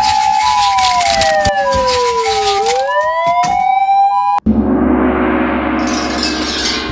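Police siren: a two-tone high-low siren alternates while a second siren tone winds down in pitch and then back up. About four and a half seconds in it cuts off abruptly, and a crash rings on and slowly fades.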